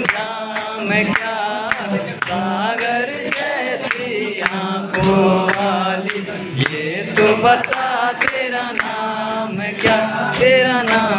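Live singing of a Hindi film song, several voices together as the audience joins in with the singer, with hand claps in time about twice a second.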